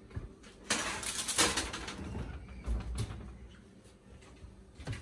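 Metal baking sheet scraping and clattering as it is set down on an enamel stovetop, with parchment paper rustling, followed by a couple of dull knocks.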